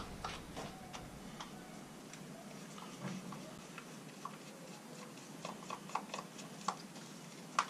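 Faint, scattered clicks and ticks of a screwdriver working the screws out of a plastic caravan hook-up plug, with light handling of the plug body. The clicks come more often in the second half, with a sharper click near the end.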